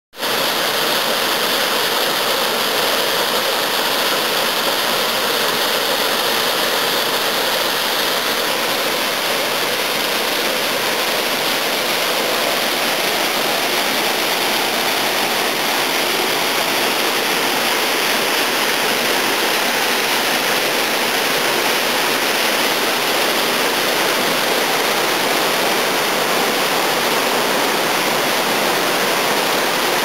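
Small mountain waterfall pouring over rock into a pool: a steady, loud rush of falling water with no let-up.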